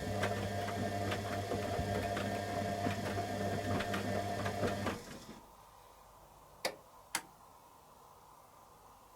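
Candy Aquamatic 100F washing machine's drum motor running with a steady hum and light ticking during the wash, cutting off suddenly about five seconds in. Two sharp clicks follow about half a second apart.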